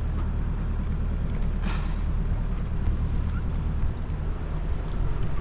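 Boat engine running steadily with a low hum, and a brief rush of noise about two seconds in.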